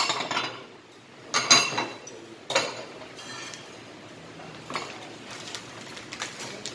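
Metal spoon and chopsticks clinking against black earthenware samgyetang pots and side-dish plates while eating: a few sharp clinks in the first three seconds, then lighter taps.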